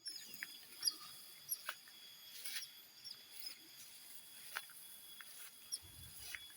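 Forest ambience: several steady high insect tones, with scattered short high chirps and light crackling clicks.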